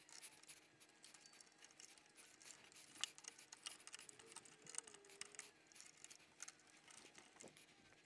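Near silence, with faint scattered clicks and scrapes of a screwdriver turning the screw terminals of a doorbell chime while wire is hooked on.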